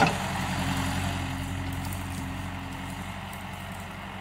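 JCB 3DX backhoe loader's diesel engine running steadily at low revs while the machine works, with a faint steady whine for the first few seconds. A sharp knock comes right at the start.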